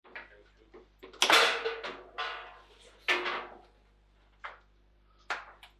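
A few hard knocks and clacks from a foosball table, each ringing out briefly. The loudest comes about a second in, with smaller ones following every second or so.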